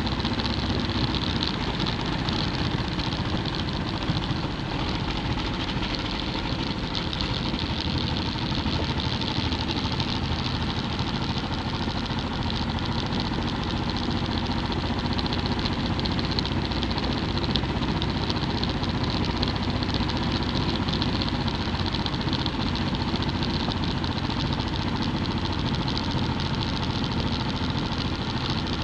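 Motorcycle engine running steadily while riding at road speed, with an even rush of wind and road noise over the bike-mounted camera.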